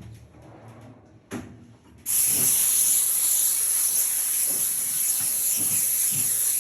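High-temperature steam cleaner jetting steam with a steady loud hiss that cuts in sharply about two seconds in, after a quieter start with a single short knock.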